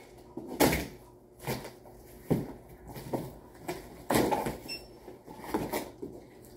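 Utility knife cutting through packing tape and cardboard on a large shipping box: a series of short scraping rips and knocks, about one a second, loudest about half a second in and again about four seconds in.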